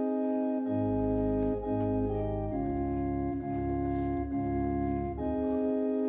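Organ music: slow held chords that change every second or two, with deep bass notes coming in about a second in.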